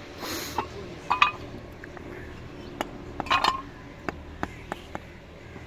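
Scattered light clinks and knocks of hard objects striking one another, about eight separate strikes, some ringing briefly, with a short scrape about a quarter-second in.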